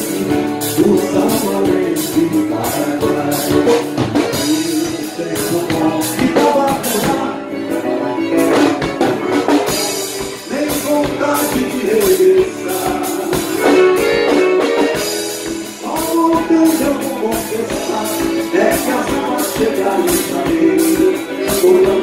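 Live band music on acoustic guitars, accordion and drum kit, with a steady drum beat.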